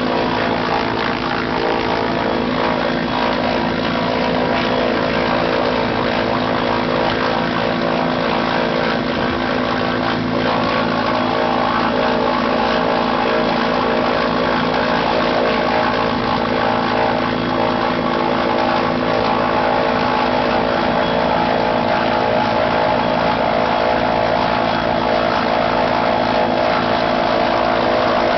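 Helicopter running steadily, a loud unbroken drone of layered rotor and engine tones.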